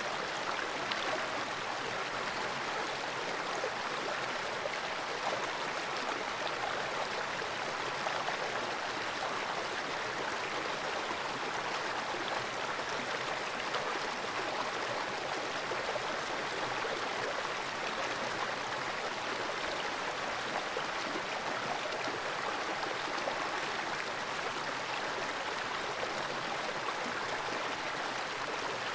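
Fast-flowing creek water rushing steadily, picked up by a camera submerged in the pool.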